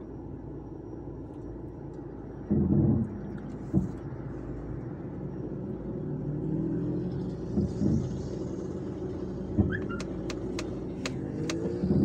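Car engine idling, heard from inside the car, with a low thump about two and a half seconds in and a few sharp clicks near the end. At the very end the engine note rises as the car pulls away.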